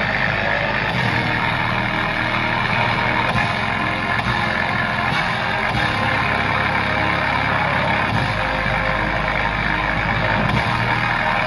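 Music played loud through a bare woofer with no enclosure, driven by a TPA3116D2 100-watt mono class-D amplifier board turned up toward its maximum output. The sound is dense and unbroken, with heavy bass.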